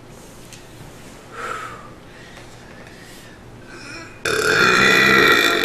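A woman lets out one long, loud burp starting about four seconds in, after a short, much quieter sound about a second and a half in.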